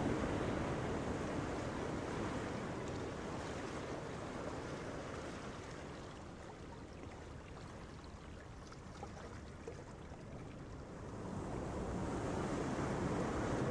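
Surf washing on a beach: an even wash of waves, growing quieter through the middle and louder again near the end.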